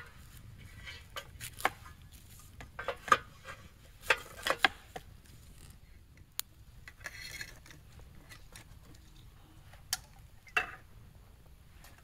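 Scattered clinks, knocks and clicks of camp cooking utensils and food being handled, coming in small clusters with short pauses between them, and a brief soft rustle about seven seconds in.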